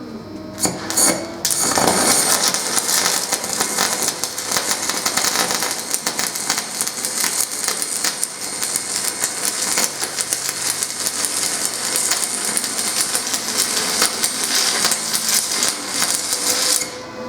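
Aluminum stick electrode arc welding on a plate preheated to about 350 degrees. A few short strikes near the start, then from about a second and a half in the arc burns with a steady, dense crackle and sizzle that cuts off just before the end. The welders judge this run too hot.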